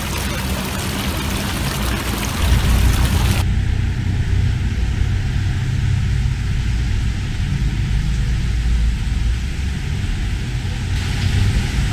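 Water running over a marble sphere fountain, an even rushing splash, until about three and a half seconds in, where it cuts off abruptly. A steady low rumble follows.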